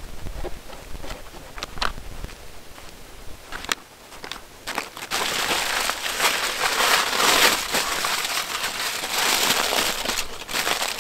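Aluminium foil crinkling and crumpling loudly as it is folded by hand around a large bread sandwich, starting about halfway through. Before that, a few light taps and clicks.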